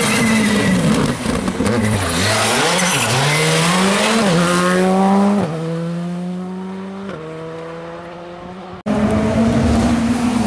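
Rally car engine at full throttle, its note climbing and dropping back with quick upshifts around four, five and seven seconds in, then fading as the car pulls away. An abrupt cut near the end brings in another rally car's engine, loud at once.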